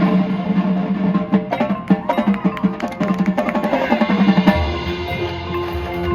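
Marching band music: rapid drum and percussion hits over pitched notes, changing about four and a half seconds in to sustained low notes and a held higher tone.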